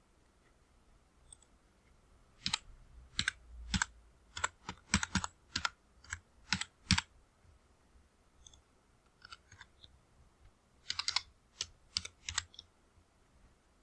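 Computer keyboard typing: irregular keystrokes in two bursts with a pause between, and a few fainter clicks in the pause.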